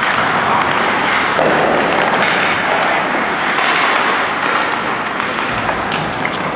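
A steady, noisy din from a team sports drill, echoing in a large hall, with a few sharp knocks and clacks; the sharpest comes about six seconds in.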